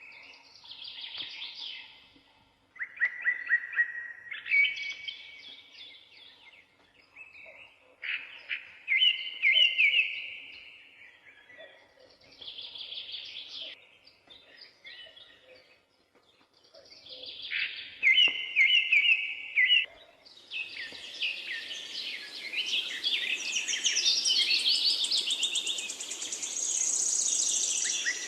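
Songbirds singing in short trilled phrases with pauses between them. About two-thirds of the way in, a steady hiss and a busier chorus of overlapping song join.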